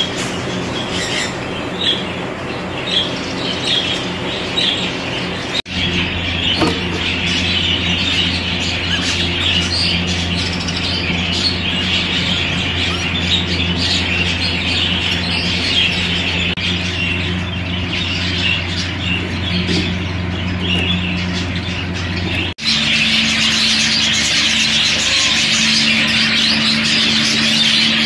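Exhibition budgerigars chattering, a dense run of small chirps and squawks over a steady low hum; the sound changes abruptly twice where the clips are cut.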